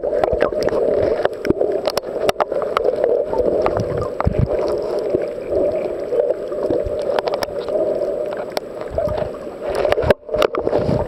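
Water noise heard underwater through a camera's waterproof housing: a steady muffled rush with scattered sharp clicks and crackles. About ten seconds in the sound drops out for a moment, then the water noise comes back.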